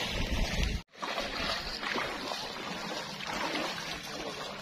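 A louder stretch with low rumble cuts off abruptly about a second in, then shallow seawater laps and splashes in a steady hiss.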